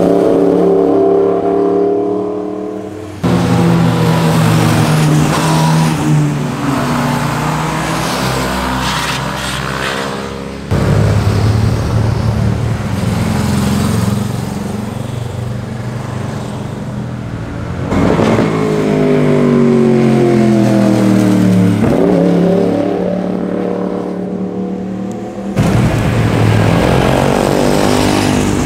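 Motorcycle engines and exhausts as several bikes ride past one after another, each engine note climbing and dropping as the rider opens the throttle and shifts gear through a bend. The sound jumps abruptly to a different bike every few seconds.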